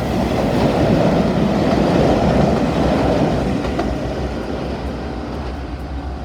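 Daiyuzan Line electric train running past close by, loudest from about one to three seconds in, then fading away.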